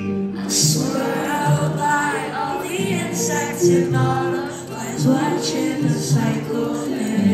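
Amplified live pop music from a concert stage: a woman sings the lead vocal over the backing music, with percussive hits cutting through.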